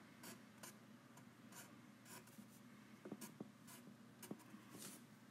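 Faint handwriting: a pen scratching on paper in a series of short strokes, with a few light taps among them.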